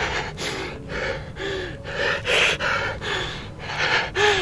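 A man panting and gasping hard close to the microphone, quick rasping breaths about two or three a second, with a few short strained groans mixed in.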